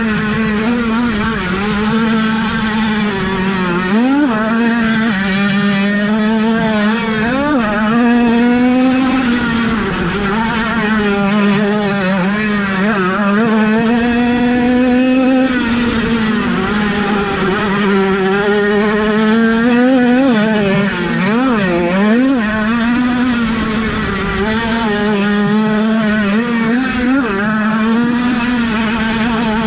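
Several small 50cc two-stroke motocross bikes racing, their engines buzzing and revving up and down with the throttle.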